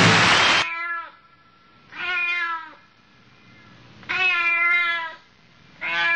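Background music cuts off under a second in, then a domestic cat meows four times, one meow about every one and a half to two seconds.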